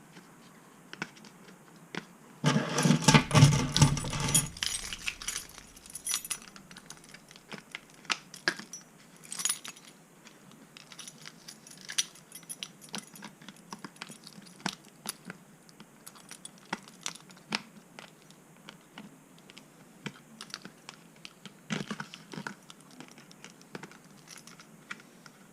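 Hands prying a tightly wedged battery out of a small foam RC plane's battery bay: a loud burst of scrabbling, clattering handling about three seconds in, then scattered small clicks and taps of plastic and foam.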